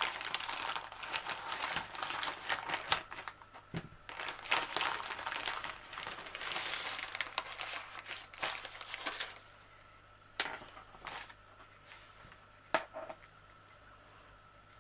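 Crinkly packaging being handled and opened: a dense run of crinkling and rustling for about nine seconds, then a few separate crackles.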